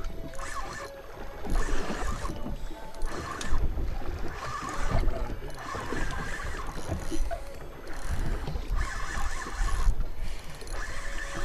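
Spinning reel being cranked in short spells of about a second with brief pauses, as a hooked fish is reeled up. A steady low rumble of wind and water runs underneath.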